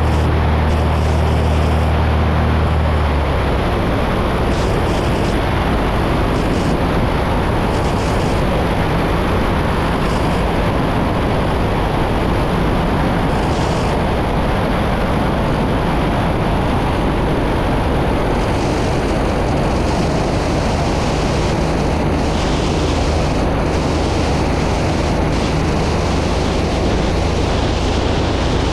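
Small airplane cabin noise: engine and propeller drone under a steady rush of air. A strong low hum drops away about three seconds in, leaving mostly the broad rushing noise, with a fainter hum returning later.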